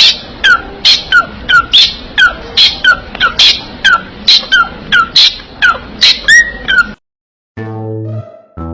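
A parrot calling over and over in short, sharp, loud calls, each dropping quickly in pitch, about two or three a second. The calls stop abruptly and, after a short pause, low bowed-string music comes in near the end.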